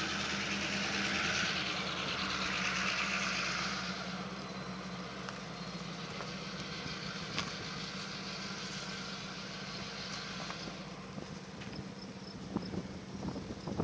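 Steady low engine hum under a rushing outdoor noise that is louder for the first few seconds, then eases.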